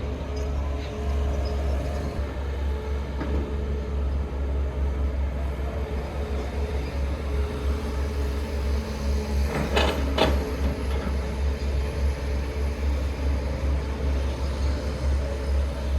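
Heavy diesel engine running steadily with a deep low rumble, and two sharp knocks about ten seconds in.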